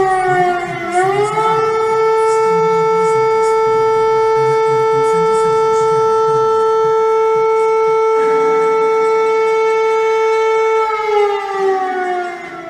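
Emergency warning siren sounding one loud wailing tone. Its pitch dips and climbs back about a second in, holds steady, and falls away near the end.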